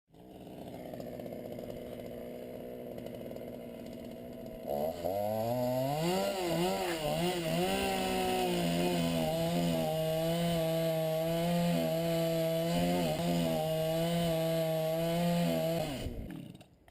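Two-stroke chainsaw engine running at low speed, then revved up about five seconds in and held at high, steady speed with brief small dips, before dropping away near the end.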